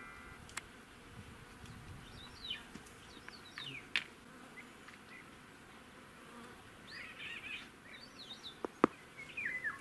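Faint open-air ambience of buzzing insects, with scattered short chirps. There is a sharp click about four seconds in and another near the end.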